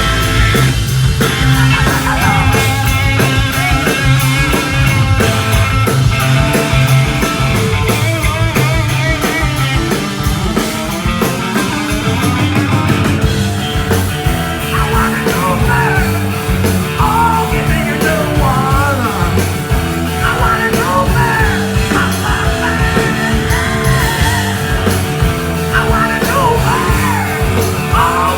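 Rock band playing live, loud and full, with guitars, bass and drums. A singer's voice comes through strongly in the second half.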